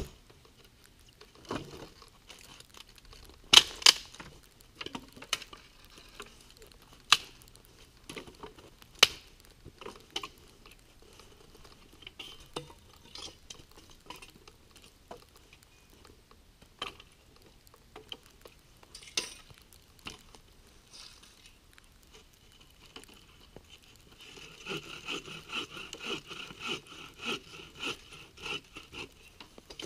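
Dry branches being snapped and broken up by hand in snowy woods, a string of sharp cracks and knocks spaced a second or two apart. Near the end comes a few seconds of quick rhythmic rasping against wood.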